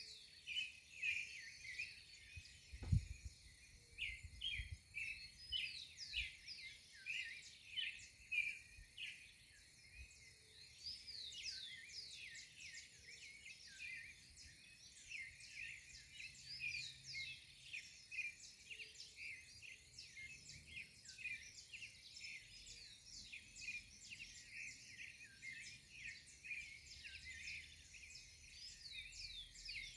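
Dawn chorus of many small birds chirping and twittering at once, a dense run of short high calls and quick sweeping notes. A single low thump about three seconds in.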